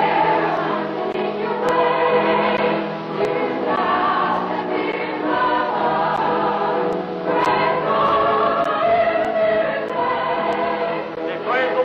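A choir singing in long held phrases.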